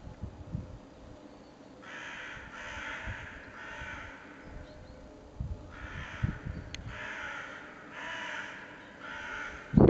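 Repeated harsh, hoarse animal calls, each about a second long, coming in irregular series several times, with a few low thumps among them.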